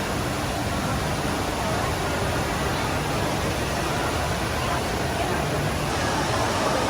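Steady rush of falling water from the Rain Vortex, a tall indoor waterfall pouring down into a pool.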